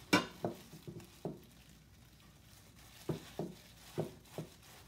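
Gloved hands patting a breaded pork cutlet into panko breadcrumbs in a glass dish: short soft pats in two runs of about four, with a pause between, the first pat the loudest.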